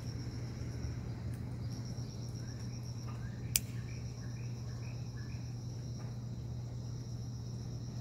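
Insect trill: a high, evenly pulsing tone that breaks off briefly about a second in, over a steady low hum. A single sharp click sounds about three and a half seconds in.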